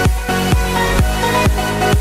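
Electronic dance music with a steady kick drum, about two beats a second, under held synth notes.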